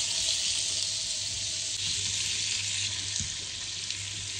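Pan-fried potato slices and a slab of butter sizzling steadily in a non-stick frying pan, the hiss easing a little as the butter melts. A faint knock of a wooden spatula in the pan comes near the end.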